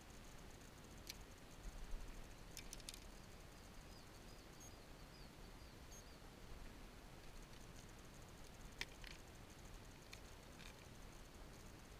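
Near silence, broken by a few faint clicks and knocks of a plastic tackle box being handled, with a faint run of short high chirps about four seconds in.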